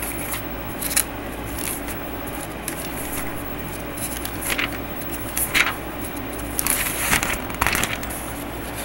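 Thin Bible pages being turned and rustled by hand, with irregular crinkles and flicks that bunch together near the end, over a steady low hum.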